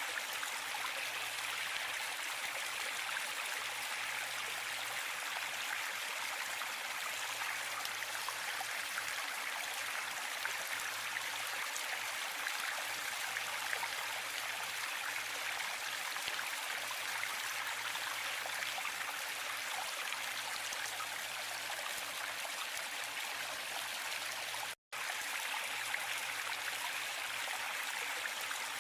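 Waterfall: a steady rush of falling water, an even hiss strongest in the upper-middle range. It cuts out to silence for a split second about 25 seconds in.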